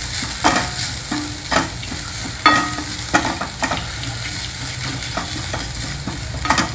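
Wooden spatula stirring and scraping grated coconut and roasted spices around a non-stick pan over a light sizzle of frying. The scrapes come irregularly, about one a second.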